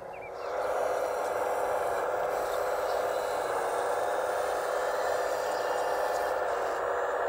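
Hydraulic pump of a radio-controlled Case CX85 rail excavator model running as the bucket is worked, starting about half a second in and then holding steady.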